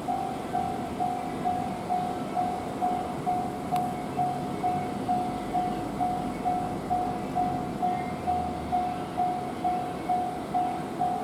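Japanese railway level-crossing warning bell ringing, a single clanging note repeating evenly about twice a second.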